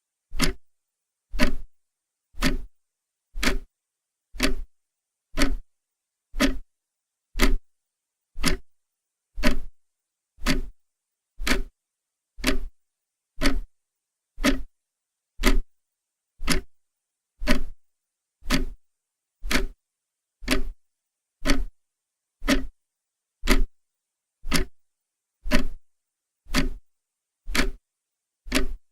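Clock ticking evenly, one tick a second, with silence between the ticks.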